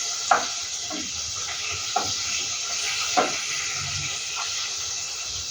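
Tomatoes sizzling as they fry in a pan, a steady hiss broken by a few short scrapes or clinks of a utensil against the pan.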